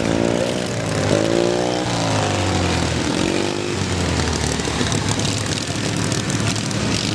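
Racing riding lawn mower engines revving, their pitch rising and falling as the throttle is opened and eased, most clearly in the first few seconds.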